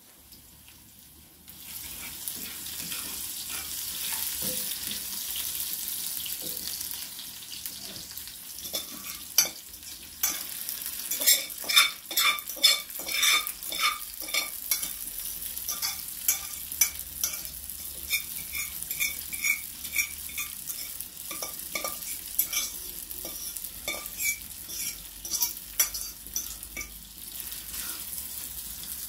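Spaghetti sizzling as it fries in oil in a pan. The sizzle starts about a second and a half in, and from about nine seconds in metal tongs clink and scrape against the pan many times as the pasta is stirred.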